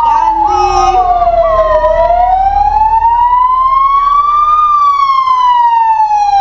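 Fire engine siren sounding a loud, slow wail. Its pitch falls for about two seconds, rises slowly for about three, then falls again.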